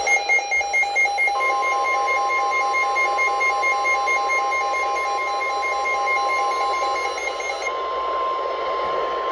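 NOAA Weather Radio alert: a receiver's rapid electronic alarm beeping, joined about a second in by the steady 1050 Hz warning alarm tone, over radio hiss. The beeping stops near the end while the tone carries on. The tone is the signal that a new warning is about to be broadcast.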